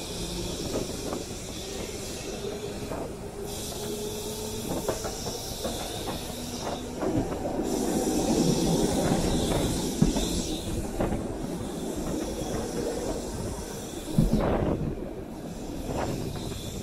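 Heritage electric tram running along its track, heard from the open top deck: a steady rumble of wheels on rail with a faint whine, a hiss that comes and goes, and two sharp knocks about ten and fourteen seconds in as the wheels strike rail joints.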